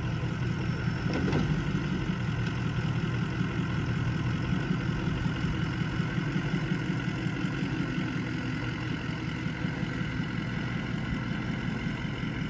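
Ford F-250's Powerstroke diesel engine running steadily at low speed as the truck crawls forward over rough off-road ground.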